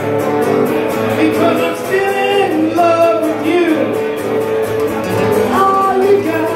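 A man singing while strumming an acoustic guitar, played live through a microphone and PA.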